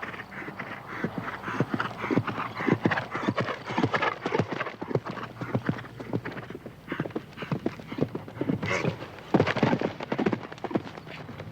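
A horse's hooves hitting the ground in a quick, uneven run of hoofbeats, as in show jumping, with a louder cluster of strikes about nine seconds in.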